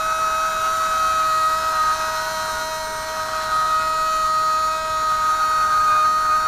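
Football commentator's drawn-out Brazilian "goool" cry: one long shouted vowel held at a steady high pitch, sagging slightly toward the end.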